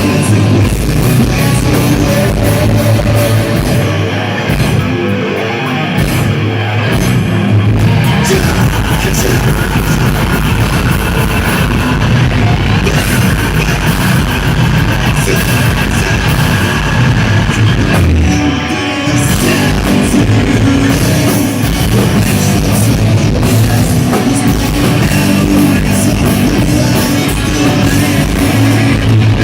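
Rock band playing live: electric guitar and drum kit, with singing. The sound is loud and dense throughout, briefly thinning in the highs a few seconds in and dipping for a moment about two-thirds of the way through.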